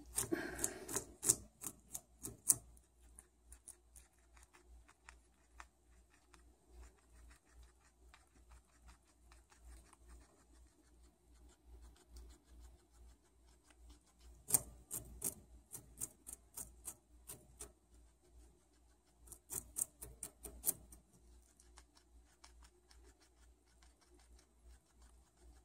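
Guinea pig biting and chewing a raw carrot stick: a stream of crisp, crunching clicks, in dense flurries at the start, just past halfway and again about three quarters of the way through, with sparser clicks between.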